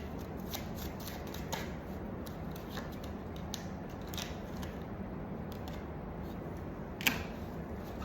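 Tarot or oracle cards being handled and shuffled: scattered light papery clicks, with one sharp snap about seven seconds in.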